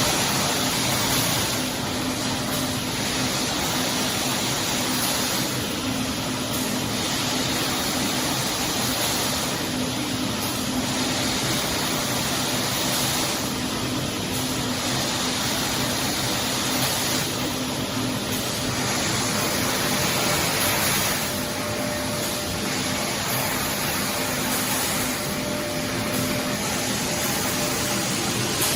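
Glass-lid tempering machine running: steady rushing air from its quench blowers over a low machine hum, swelling briefly every few seconds.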